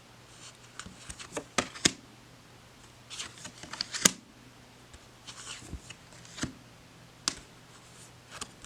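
Tarot cards being handled and flipped through: a string of light card clicks and short papery rustles at irregular intervals, the busiest stretch about three to four seconds in.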